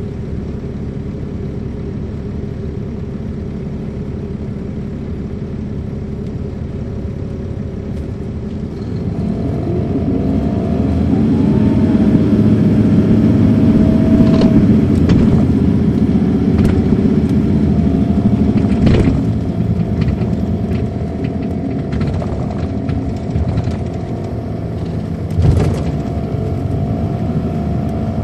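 Caterpillar C13 ACERT diesel of an MCI D4500CL coach heard from inside the bus, running steadily, then building about nine seconds in as the bus accelerates, with a steady whine over the engine note, before easing back. Interior rattles and a few sharp knocks, the loudest near the end.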